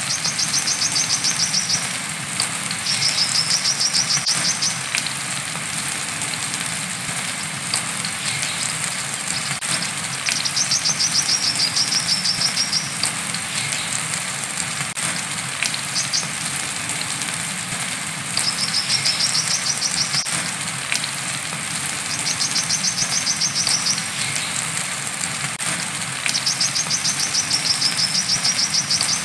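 Brown-throated sunbird giving its 'wiceh' call: repeated trills of very fast, high notes, each one to three seconds long, with pauses of a few seconds between, over a steady hiss of rain.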